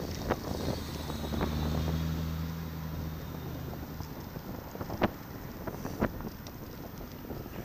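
Wind rushing over the bike camera's microphone while cycling, with a few sharp knocks as the bike jolts over bumps in the road. A motor vehicle's engine hums alongside for about three seconds near the start.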